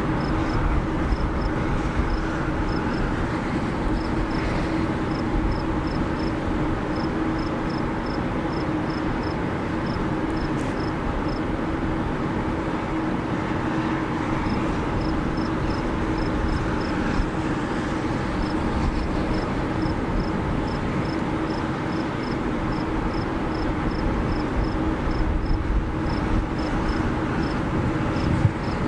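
Steady rumble and hiss with a low hum, as of a vehicle's engine running. Short high chirps repeat a few times a second through most of it.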